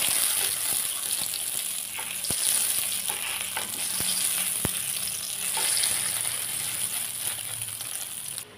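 Two sausages sizzling as they fry in hot oil in a stainless-steel wok, turned with chopsticks that click against the pan a few times. The sizzle cuts off suddenly near the end.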